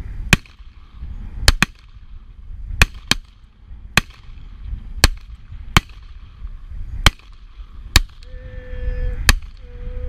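Revolver shots in a timed field-shooting string: about eleven sharp shots, unevenly spaced, two of them almost together, over low wind rumble on the microphone.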